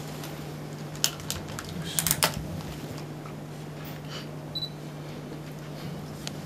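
Camera shutters clicking in scattered bursts, busiest about two seconds in, over a steady low hum.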